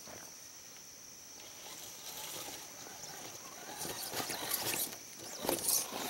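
Scale RC rock crawler climbing loose dirt: faint motor whine with irregular crunching and scraping of tyres on soil and debris, growing louder as it comes closer.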